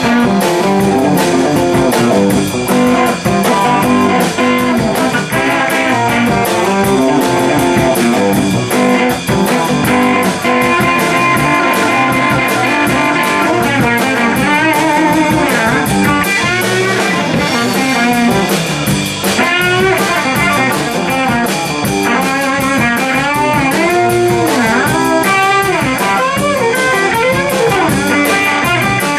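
Live blues-rock band playing loud: electric guitars, bass guitar and drum kit. From about halfway through, a lead electric guitar line of bent, wavering notes sits on top.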